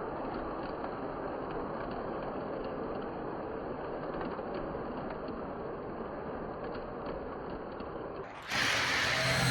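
Lionel 239 toy steam locomotive running around its track: a steady motor whir and gear noise with faint ticks of the wheels over the rail joints. Near the end it cuts off suddenly and a louder, different recording takes over.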